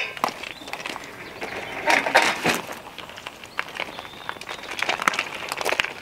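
Irregular clattering, knocks and rattles of a carp-fishing barrow and tackle bags being handled and set down on gravel, loudest just after two seconds in. Footsteps crunch on gravel.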